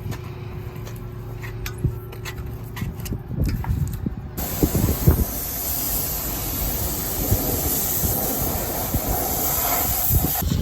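Low machinery rumble with scattered clicks, then about four seconds in a pressure washer's spray starts abruptly as a loud, steady hiss and runs until it cuts off near the end.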